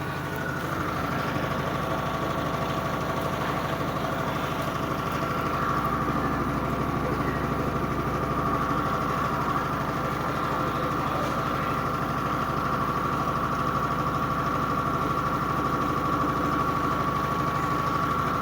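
Electrolux LBU15 top-loading washing machine in its spin cycle: a steady motor hum with a fast, fine rattling rhythm underneath and a high steady whine on top that grows a little louder after about six seconds. It is the abnormal noise the machine makes during the spin.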